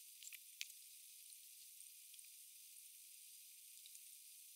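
Near silence: a faint steady high hiss, with a few faint ticks in the first second.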